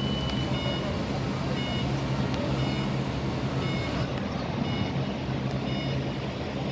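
Skyjack scissor lift's motion alarm beeping about once a second, short high beeps, over a steady low hum.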